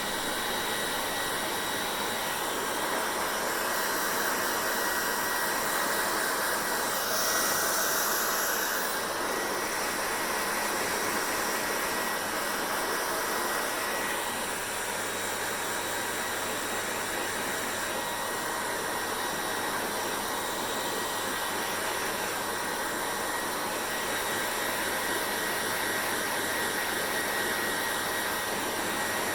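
Hand-held hair dryer blowing steadily, a continuous rush of air with a faint steady whine. About seven seconds in the hiss turns brighter for a couple of seconds, then settles back.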